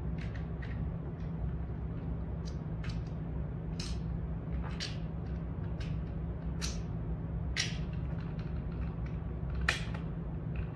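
Scattered sharp clicks and taps of CO2 launcher parts and rounds being handled by hand, about ten at irregular intervals, over a steady low hum.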